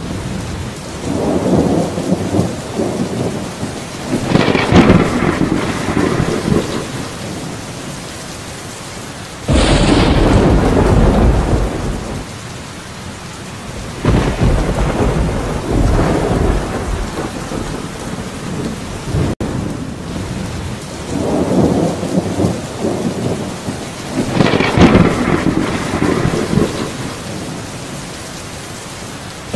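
Steady rain with rolls of thunder: low rumbles swell and fade every few seconds, with a sudden loud clap about nine and a half seconds in.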